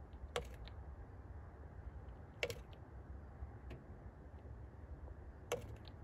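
A small bird pecking at a pickup truck's side window glass: sharp taps, three louder ones two to three seconds apart with a few fainter ones between.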